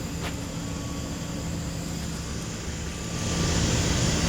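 Semi-truck tractor's engine running steadily with a low hum. About three seconds in, a louder rushing noise swells up over it.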